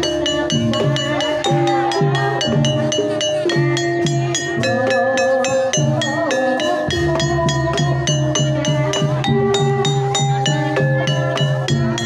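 Live Banyumasan tayub music: a kendang hand drum beating low strokes under an even, running pattern of struck tuned keys.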